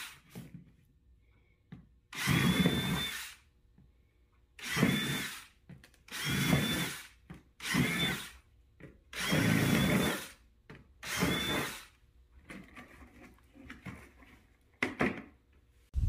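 Cordless drill running in six short bursts of about a second each, boring holes through the bottom of an upturned plastic cat litter pail. Quieter handling sounds follow, with a sharp knock near the end.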